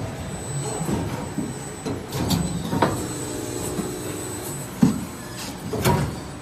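Injection molding machine running, a steady mechanical hum broken by several sharp clunks from its moving parts.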